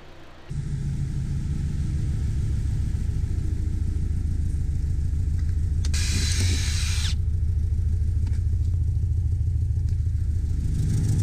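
Mazda MX-5's four-cylinder engine running steadily, brought back to life after a year left sitting. A short burst of hiss lasts about a second, about six seconds in.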